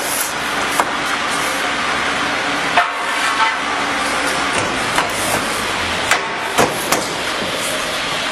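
Sharp metal knocks, about seven at uneven intervals, over a steady workshop noise, as the steel mould of a wall panel making machine is fitted.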